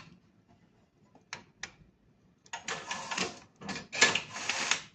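Tabletop band binding machine cycling on a bundle: two light clicks, then two short mechanical runs of about a second each as the transparent OPP film band is fed, pulled tight around the bundle and sealed.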